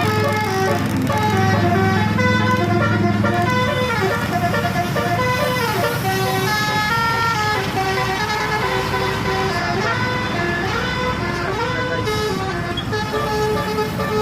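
Telolet musical air horns on tour buses playing runs of notes that step up and down like a tune, with occasional slides in pitch, over the steady low rumble of the bus engines.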